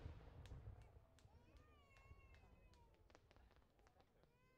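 The low rumble of an aerial firework burst dying away, with scattered sharp crackles over the first few seconds. A thin, high, wavering cry is heard about a second in and again near the end.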